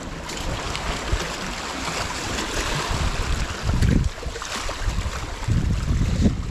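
Sea water washing and splashing against rocks around a hooked trevally being drawn in at the surface, with gusts of wind on the microphone about four seconds in and again near the end.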